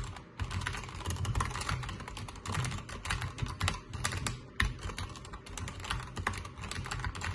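SteelSeries Apex Pro TKL mechanical keyboard with lubed OmniPoint switches, typed on quickly in a dense, unbroken stream of keystrokes.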